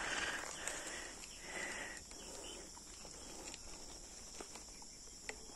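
Steady high-pitched drone of insects, with scattered light clicks and a rustling noise over the first two seconds.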